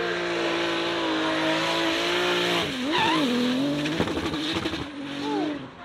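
Drift car sliding sideways under power, its engine held at high, steady revs over the noise of spinning tyres. A little under three seconds in, the revs drop and climb again, then rise and fall unevenly for the rest of the slide.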